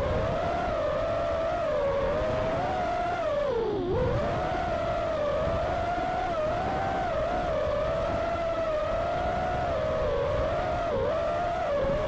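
FPV freestyle quadcopter's brushless motors and propellers whining, recorded through the onboard camera's microphone. The pitch wavers up and down with the throttle and drops sharply about four seconds in and again near the end, over a rough rush of wind and prop wash.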